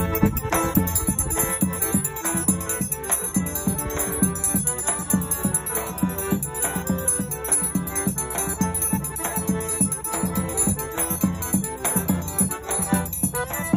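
Background music with a steady, even beat.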